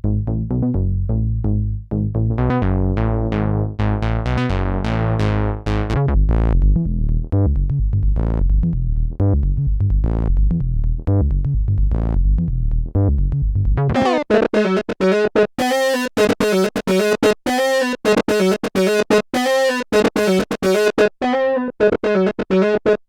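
Roland SE-02 analog monophonic synthesizer playing a sequenced bass line, its filter opening to a brighter tone and closing again. About fourteen seconds in, the bass drops away and the pattern changes to short, staccato repeated notes in a higher register.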